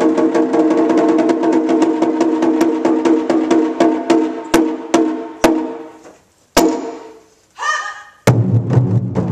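Taiko drumming. A fast, even run of crisp, high-pitched drum strikes slows and thins out to a brief pause, broken by one sharp strike. A short shout follows, then deep beats on the large barrel taiko start near the end.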